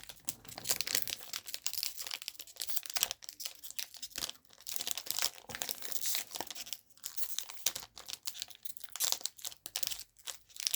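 Foil trading-card booster pack wrapper being worked open by hand: an irregular run of crinkling and tearing crackles, the tightly sealed wrapper resisting.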